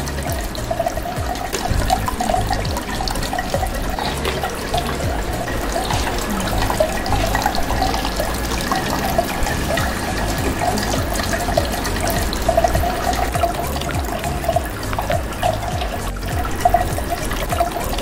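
Water from a homemade tabletop fountain pouring in a thin stream from a clay pot's spout and splashing into the basin below, a continuous trickling splash.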